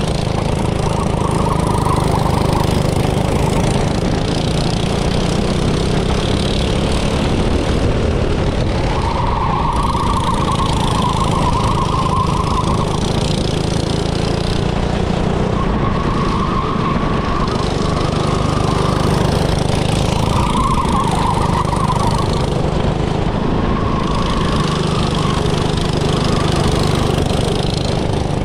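Small petrol engine of a go-kart running under load, its engine note rising and falling several times as it is throttled.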